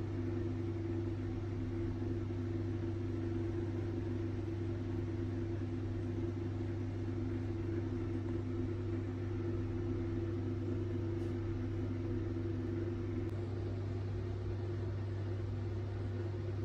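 Steady machine hum: a low drone with two higher steady tones above it.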